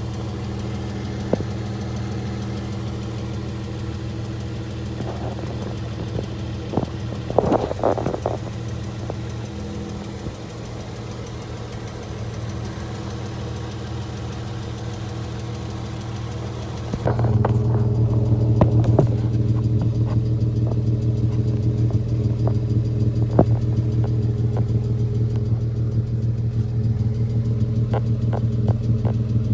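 Chrysler 3.6L Pentastar V6 in a Dodge Charger idling steadily, with scattered light clicks and a brief rattle about eight seconds in. About seventeen seconds in the sound changes abruptly to a louder, duller engine note.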